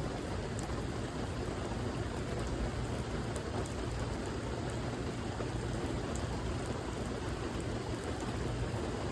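Steady rain falling, a continuous even hiss with a deep low rumble and faint scattered drop ticks.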